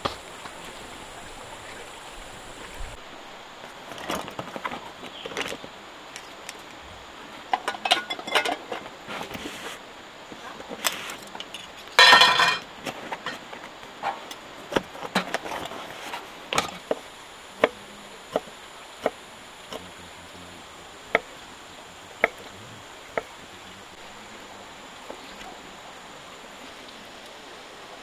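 Light clinks and knocks of camp cooking gear being handled, with one louder clatter about twelve seconds in. Then come single sharp taps about once a second, which stop after ten or so. A steady rush of river water runs under it all.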